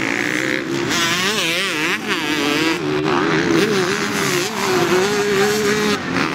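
Motocross bikes racing, their engines revving up and down in quick rises and falls of pitch.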